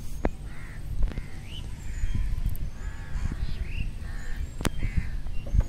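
Crows cawing repeatedly, short calls one after another, over wind rumble on the microphone, with a sharp click early on and a louder one near the end.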